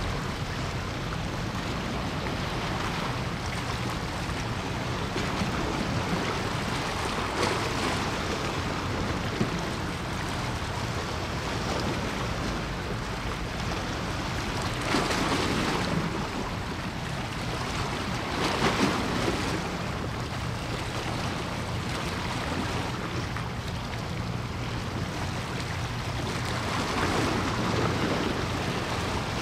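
Sea water washing steadily with wind on the microphone, rising in louder washes a few times, over a faint low hum.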